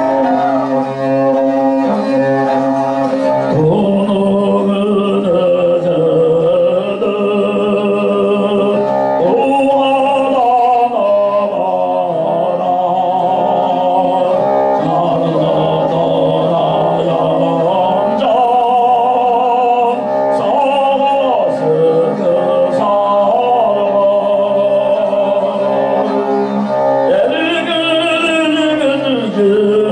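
A long-necked bowed fiddle plays a steady drone-like accompaniment, and about three to four seconds in a man's Tuvan throat singing (khoomei) joins it. The voice holds a low drone, and a bright whistling overtone melody rides above it.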